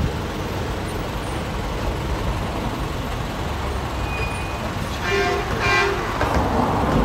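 Steady low rumble of road vehicles, with two short horn toots about five seconds in.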